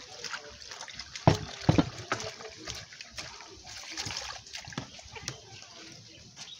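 Water poured from a plastic dipper over spinach and scent leaves in a glass bowl, splashing and sloshing as hands wash the leaves. Short knocks and clatter run through it, the loudest two about a second and a half in.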